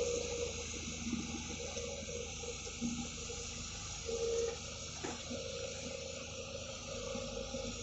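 Volvo EC140B amphibious excavator running with a steady engine hum, while water splashes and pours as its bucket dumps muck and dips back into the river.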